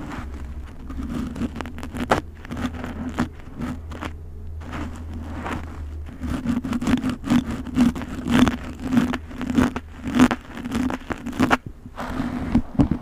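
Close-miked scraping and crackling of a thin pointed tool drawn through a mannequin head's hair, in many short strokes. The strokes grow denser and louder about halfway through.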